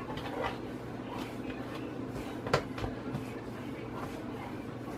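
Hands kneading a ball of dough on a granite countertop: soft pressing and rubbing, with one sharp knock about two and a half seconds in, over a steady low hum.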